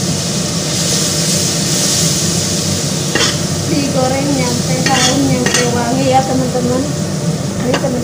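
Chili spice paste frying in hot oil in an aluminium wok: steady sizzling, with a spatula stirring it and scraping against the metal a few times.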